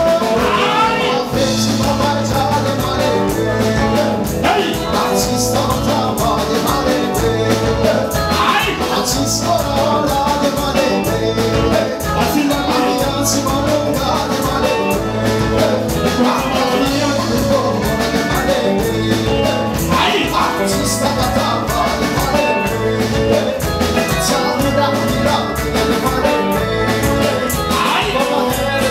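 Live band playing upbeat music: a male singer over drums and a steady repeating bass line.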